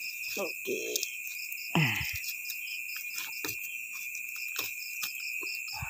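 Night insects, likely crickets, keep up a steady high trill with a pulsing chirp about four times a second. Over it come light rustles and clicks of paper and raffia string being handled as a paper-wrapped glass pane is untied. About two seconds in there is a brief louder sound that falls in pitch.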